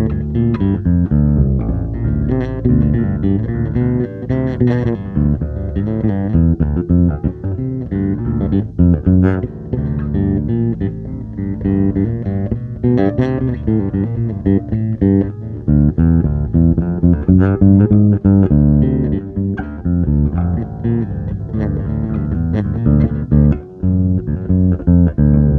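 Plucked guitar music, low in pitch: a continuous, busy run of changing notes with no pause, noodling and searching for ideas.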